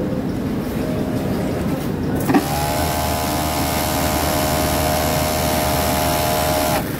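A machine's electric motor starts with a knock about two seconds in, runs with a steady whine for about four seconds, then cuts off suddenly just before the end.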